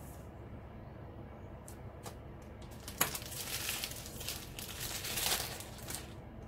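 Small clear plastic bags of diamond painting drills crinkling and clicking as they are picked up and dropped onto a desk: a few light taps, a sharper click about three seconds in, then a couple of seconds of rustling.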